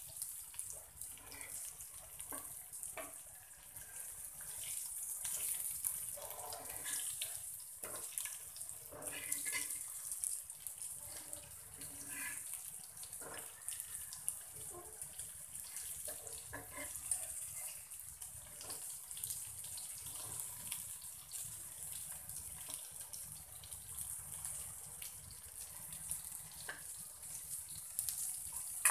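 Surmai (kingfish) steaks shallow-frying in oil on a flat tawa, a steady high sizzle, with scrapes and taps of a steel spatula against the pan as the pieces are turned over.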